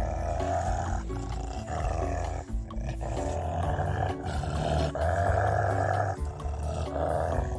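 Wolves snarling at each other in a run of repeated snarls about a second each, over background music.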